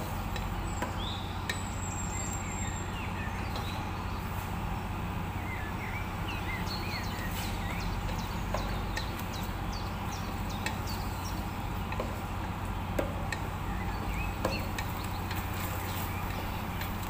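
A wooden spatula stirring chicken pieces in a stainless steel pot, giving scattered light knocks and scrapes against the metal over a steady low hum and hiss.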